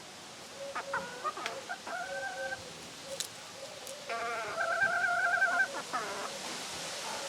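Rooster crowing twice: a shorter crow about two seconds in, then a longer, louder, wavering crow about four seconds in.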